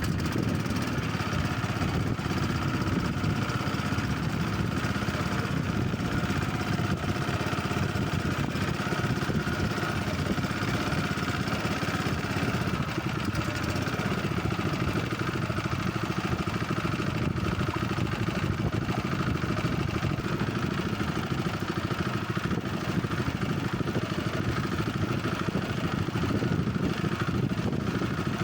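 Small fishing boat's engine running steadily at a constant speed, with no change in pitch.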